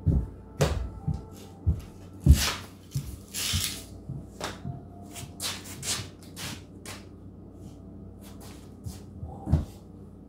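Irregular knocks and thumps, about a dozen over ten seconds, with a swish of the bat a little over two seconds in, as a child swings and taps a bat on a concrete floor.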